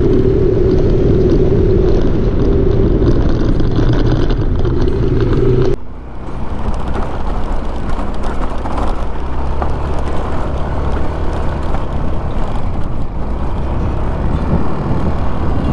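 Yamaha Aerox 155 scooter's single-cylinder four-stroke engine running while the scooter is ridden. A steady high drone drops away suddenly about six seconds in, leaving a lower, rougher engine sound over road noise.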